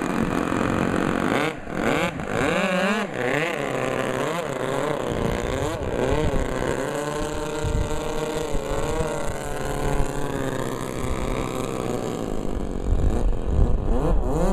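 Two OS 49-PI single-rotor Wankel model engines of 4.97 cc running on a twin-engine RC plane. Their pitch rises and falls again and again as the throttle is worked, with a few abrupt breaks in the sound.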